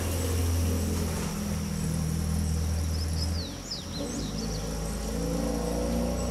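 A motor vehicle engine running, its low hum shifting in pitch a few times, over a steady high insect whine. About three seconds in, a brief burst of quick high bird chirps.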